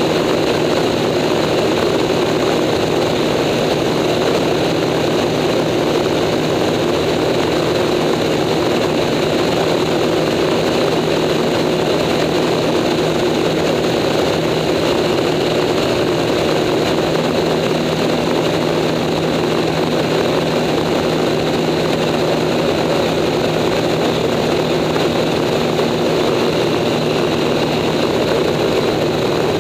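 Acroduster SA750 aerobatic biplane's piston engine and propeller running steadily in flight, heard from the cockpit.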